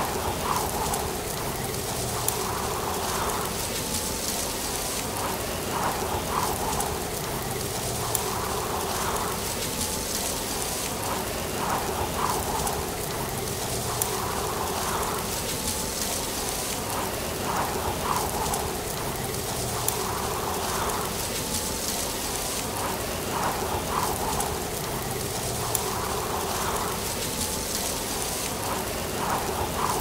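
Autumn leaves rustling: a steady, even hiss with scattered small ticks.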